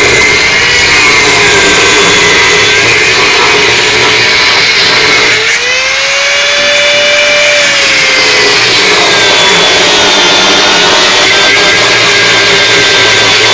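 Bosch GWS 6-100 angle grinder cutting through the seized, scale-crusted hub nut of a washing machine's spin drum. The grinder runs with a loud, steady whine whose pitch dips and climbs back about five seconds in and again near the end as the load on the disc changes.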